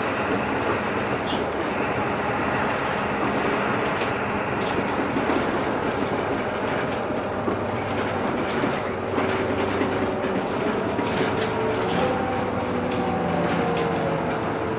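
Inside a moving city bus: steady engine and road noise with frequent small rattles of the cabin fittings. About twelve seconds in, the engine note steps up and holds.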